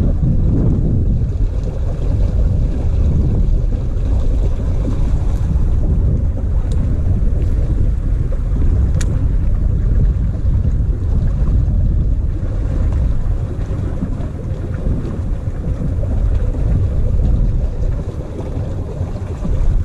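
Wind buffeting the microphone outdoors: a steady, heavy low rumble, with a couple of faint clicks partway through.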